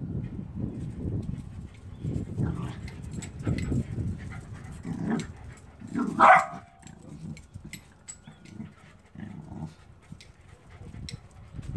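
Corgi giving a single short bark about six seconds in, with small sharp clicks of young goats' hooves on the concrete porch.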